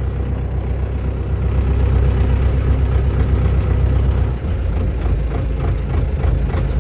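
Tractor engine running steadily, powering the hydraulics that hold the tipping trailer bed raised during unloading.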